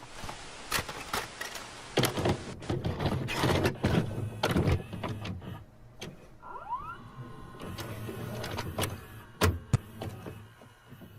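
A run of irregular clicks and knocks over a noisy mechanical background, with a short rising whine about six and a half seconds in.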